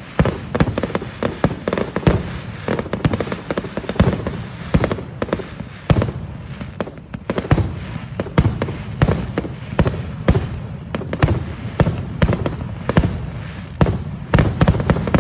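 Fireworks finale barrage: a rapid, unbroken string of shell launches and bursts, several sharp bangs a second with no pause.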